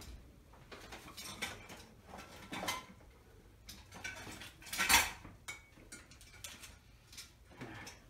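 Metal objects clattering and clanking as someone rummages through stored parts, in scattered knocks with the loudest clank about five seconds in.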